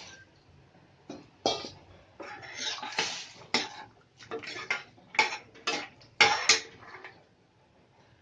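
Metal utensil knocking and scraping against a cooking pot of sambar in about ten short, irregular strokes, as the pot is stirred after the tamarind water goes in.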